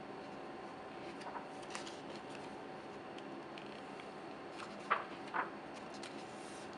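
Pages of a photobook being turned by hand: soft paper rustles, then two sharper page flicks about five seconds in, over a faint steady hum.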